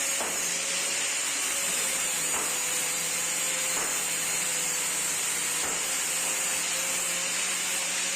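Steady hiss with a faint steady hum underneath, like a machine running, with a few faint knocks scattered through it.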